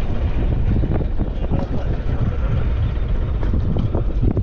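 Wind buffeting the microphone: a steady low rumble with short crackles scattered through it.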